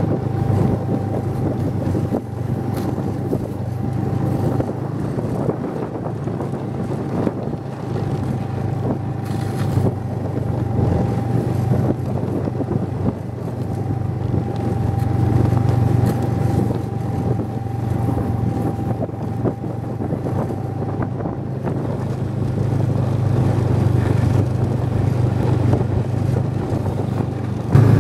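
Snowmobile engine running steadily while riding along, a continuous low drone with a faint steady whine above it that drops out about three quarters of the way through.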